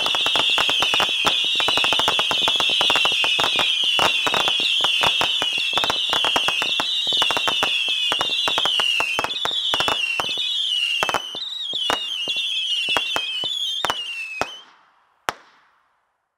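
Saturn missile battery firing its small whistling missiles in a rapid stream: a continuous shrill, wavering whistle over a dense rattle of sharp pops. The volley thins out after about ten seconds, the whistling stops near the end, and one last pop follows as the battery burns out.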